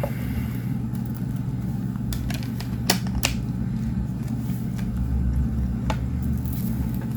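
Steady low machine hum, with a few light clicks of a steelbook case and discs being handled.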